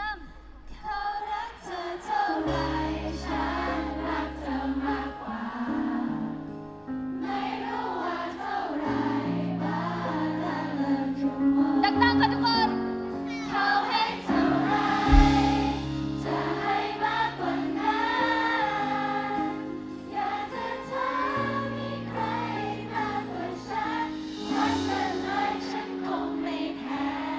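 Pop song with layered female vocals over long, held bass notes, played through a concert sound system, with one sharp hit about halfway through.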